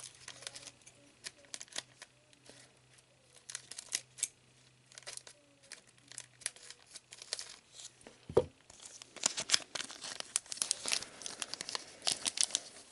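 Pokémon booster pack wrapper being crinkled and torn open by hand, with scattered crackles that thicken into steady crinkling in the last few seconds. A brief vocal sound a little past eight seconds in.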